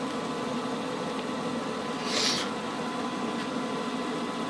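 Steady hum of room tone, with one short rustle about two seconds in as the shrink-wrapped cardboard box is handled on the desk.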